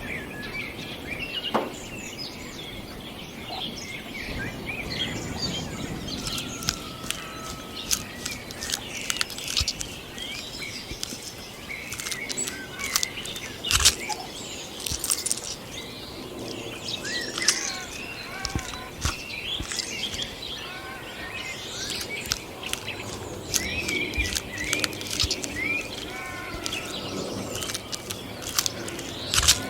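Outdoor nature ambience: many birds chirping and calling, with sharp clicks now and then over a steady low background rumble.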